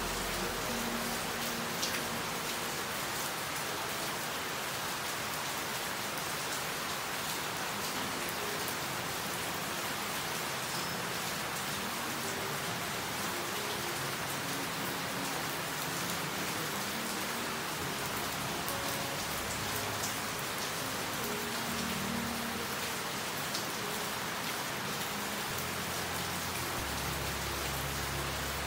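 Steady rain falling, an even hiss with a few louder single drops.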